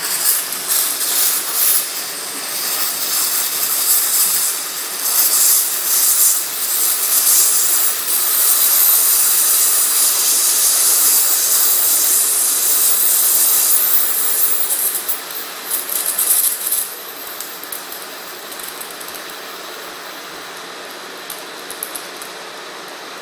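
Multiplaz 3500 steam-plasma torch hissing and crackling as its arc fusion-welds metal without filler rod. The hiss is loud for about the first seventeen seconds, then drops to a quieter steady hiss.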